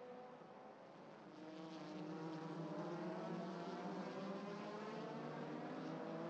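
A pack of small open sports-prototype race cars running at high revs, several engines heard at once at different, shifting pitches. The sound gets louder about a second in.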